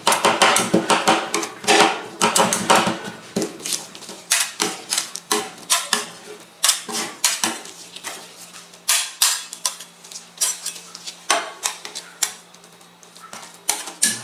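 Metal spatulas chopping and scraping on the steel cold plate of an ice cream roll pan: rapid clattering taps, dense for the first three seconds or so, then sparser and more scattered.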